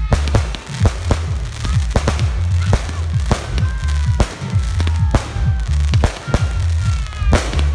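Aerial fireworks shells bursting in a rapid string of sharp bangs, about two or three a second, with a low rumble beneath. Several falling whistling tones run through it.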